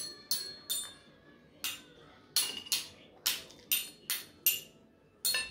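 Metal spoon clinking against a ceramic bowl while eating from it: about ten light, ringing strikes at an uneven pace.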